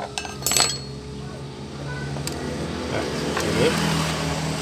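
Metal parts clinking as loosened bolts and a steel plate are handled and lifted off the kickstarter gear inside a scooter's CVT cover: two sharp clinks in the first second, then another. A motor vehicle engine hums in the background and grows steadily louder from about halfway through.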